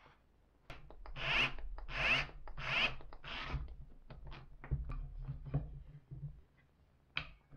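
A small metal part rubbed back and forth on a fine-grit (2500) abrasive sheet, about four strong strokes. Lighter scrapes and clicks follow as a flip stop is slid and set on its aluminium track, with one sharp click near the end.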